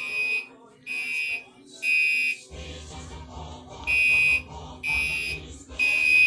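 Gentex Commander 3 fire alarm horn sounding its temporal code 3 pattern: three short, high blasts a second apart, a pause of about a second and a half, then three more. A low rumble starts about two and a half seconds in.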